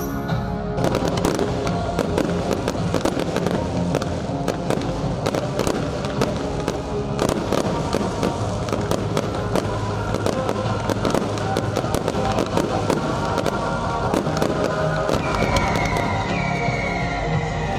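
Fireworks display: many sharp bangs and crackles in quick succession, starting about a second in, with music playing throughout.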